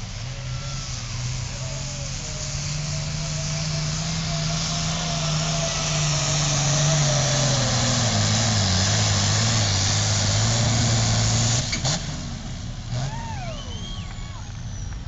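Turbocharged diesel engine of a red International Harvester pulling tractor working flat out under the load of the pulling sled, with a loud turbo and exhaust hiss. The pitch sags as the engine bogs under the growing drag. About 12 seconds in, the power comes off abruptly, leaving a quieter engine and a few rising-and-falling whistles.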